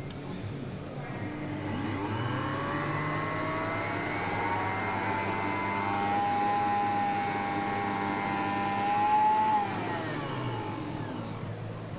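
Xiaomi Smart Blender's motor spinning up with a rising whine, running at a steady high speed, then winding down near the end.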